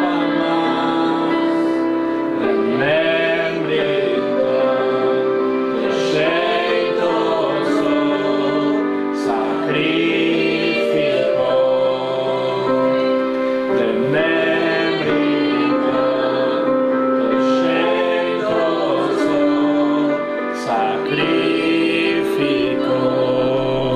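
Congregation singing an Albanian worship song together, with sustained instrumental accompaniment.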